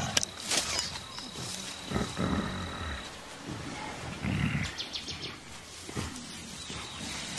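Mountain gorilla giving low grunts, two of them clearest, about two seconds in and again about four and a half seconds in, over a steady high insect whine that stops about three seconds in.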